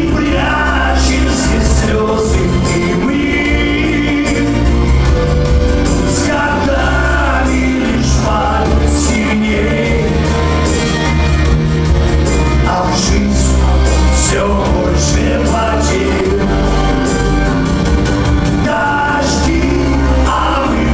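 Russian chanson band playing live, with a male lead singer singing over the full band and a heavy, steady bass line.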